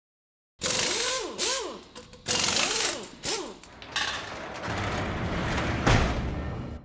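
Produced intro sound effects for an animated title card: loud bursts of mechanical whirring whose pitch swoops up and down, then a steadier rumble that ends in a heavy hit near the end and fades away.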